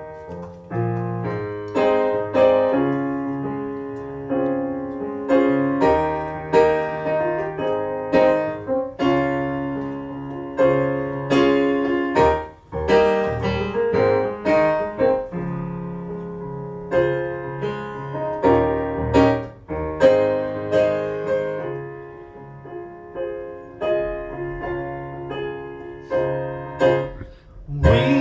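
Solo piano playing a song's instrumental introduction: struck chords over a low bass line, notes left to ring, with no voice.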